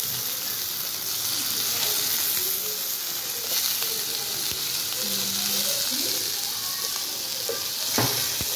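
Boneless marinated chicken pieces sizzling steadily in hot oil in a nonstick frying pan, with one sharp knock of the slotted spatula against the pan near the end.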